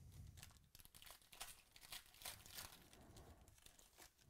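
Foil trading-card pack wrapper crinkling and tearing as the pack is opened: a faint, irregular run of crackles.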